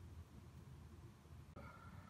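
Near silence: faint low room hum, with a brief dropout about one and a half seconds in where the audio changes.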